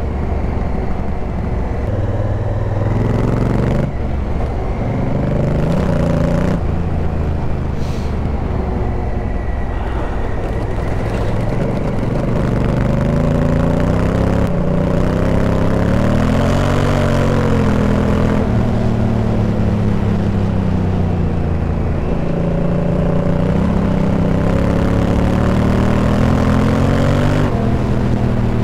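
Adventure motorcycle engine under way, its revs rising and falling with throttle and gear changes, with a couple of quick drops in pitch in the first few seconds. Wind rush sits over it.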